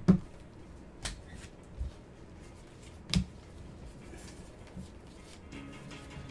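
A few sharp clicks and knocks of trading cards and cardboard card boxes being handled and set down on a table, the loudest right at the start, then single ones about one, two and three seconds in.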